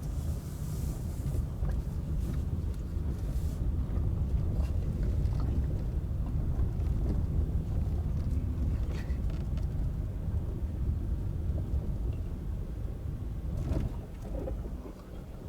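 Car driving, heard from inside the cabin: a steady low rumble of engine and road noise with a few faint clicks, dropping off noticeably near the end.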